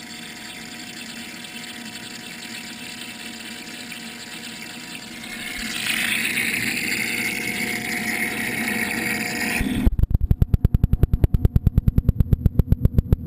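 Water and air bubbling and splashing from a bilge-pump-driven venturi aeration outlet in a cooler live-well, a steady hiss that grows louder about halfway through. Near the end it is heard from under the water: a rapid, even pulsing churn with a deep rumble.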